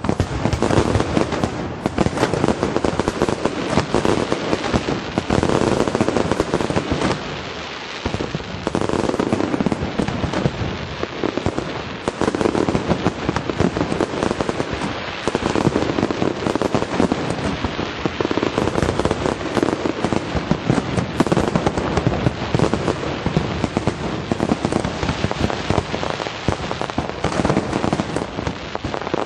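Fireworks display finale: a continuous barrage of bursting shells with dense crackling and rapid bangs, easing briefly about seven seconds in before building again.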